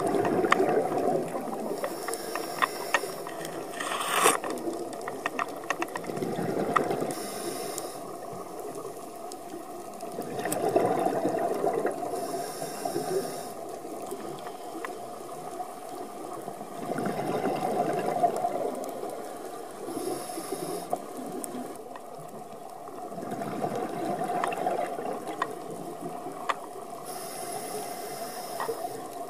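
Underwater sound of a scuba diver breathing through a regulator: a brief hiss on each breath in, then a rush of exhaled bubbles, repeating about every six or seven seconds. Scattered sharp clicks run underneath throughout.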